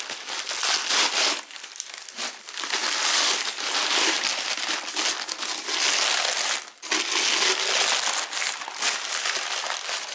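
Plastic packing wrap crinkling and crackling as it is pulled off and crumpled by hand, nearly without a break, with a brief pause about seven seconds in.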